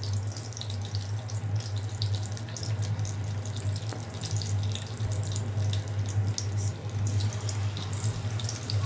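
Chicken kofta frying in shallow oil in a non-stick wok: a steady sizzle full of fine crackles and pops, over a constant low hum.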